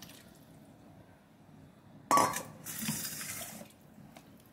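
A sharp metallic clank about two seconds in, as the steel tumbler is set down. About a second of wet stirring follows: a wooden spatula working milk into ground almond paste in a nonstick pan.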